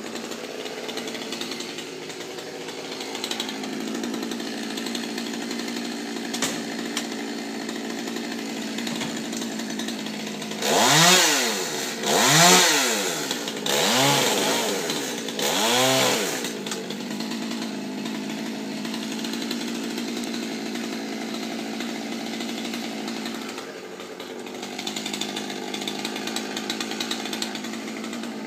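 Two-stroke Stihl chainsaw idling steadily, revved up and back down four times in quick succession about a third of the way through.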